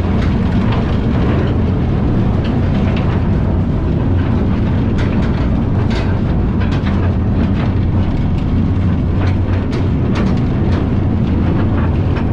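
Coal-mine trolley train running on its track: a loud, steady low rumble with frequent irregular clanks and rattles from the wheels and cars.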